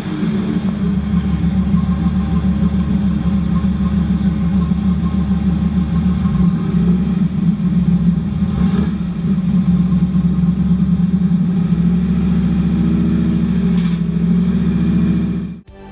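1985 Pontiac Trans Am WS6's V8 engine running steadily while the newly rebuilt power steering is bled of air. It cuts off suddenly near the end.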